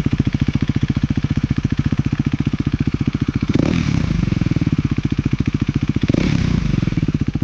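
KTM Duke 390 (BS4) single-cylinder engine idling through its stock exhaust with an even, pulsing beat, blipped twice on the throttle, about three and a half seconds in and again near six seconds, each time rising briefly and settling back to idle.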